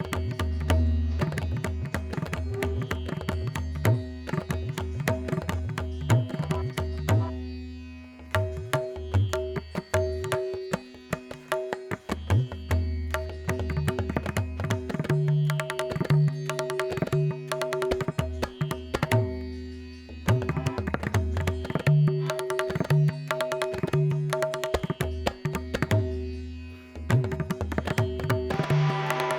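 Background music in an Indian style, with tabla drumming over a steady drone.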